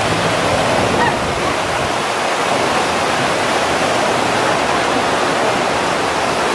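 Steady, loud rush of falling and splashing water from the water slides' run-out jets and the artificial volcano's waterfalls.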